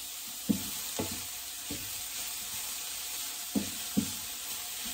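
Cauliflower rice sizzling in a skillet with olive oil while it is stirred, the utensil knocking against the pan about five times.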